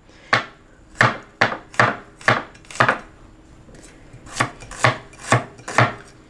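A Chinese cleaver chops spring onions on a wooden cutting board, making a run of sharp knocks about two a second. The chopping pauses for about a second midway.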